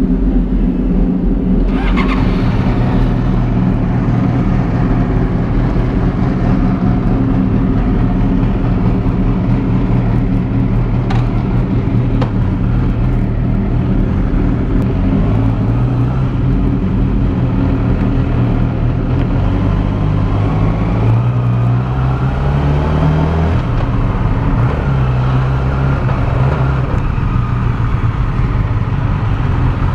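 Yamaha R6 inline-four engine running steadily at low revs, with a clunk about two seconds in, then pulling away at low speed with the revs rising and falling. The faulty spark plug behind its rough idle and jerking has just been replaced.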